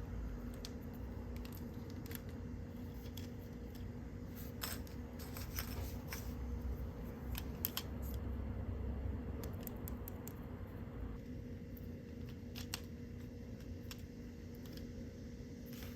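Scattered light clicks, taps and rustles of small plastic toy pieces and packaging being handled, over a steady low electrical hum.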